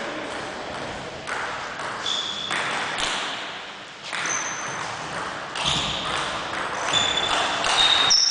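Table tennis rally: the celluloid ball clicks back and forth off the table and the rubber-faced bats, about one hit a second, with a few short high-pitched squeaks between hits.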